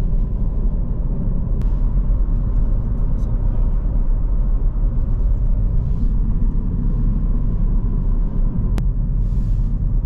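Steady low rumble of a Mini Cooper driving, engine and road noise heard inside the cabin, with a faint click about a second and a half in and another near the end.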